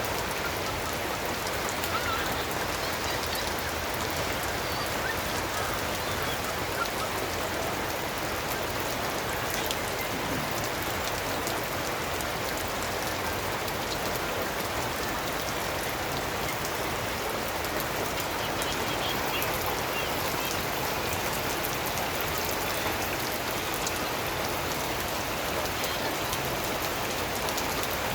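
Steady rain falling and pattering on surfaces, a dense even hiss with many fine drop ticks throughout.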